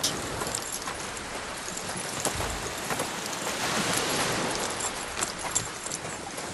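Footsteps of several people crunching on a pebble beach, with clicks and rattles from carried gear, over a steady hiss.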